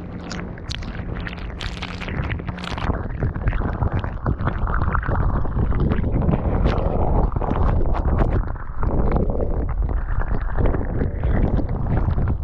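Molten aluminum entering a bucket of water beads and boiling the water around it: a dense low rumble shot through with rapid crackling and popping, growing louder over the first few seconds.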